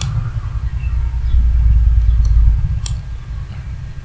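A low rumble swells about a second in and fades just before three seconds. Two sharp computer mouse clicks sound over it, one at the start and one just before three seconds.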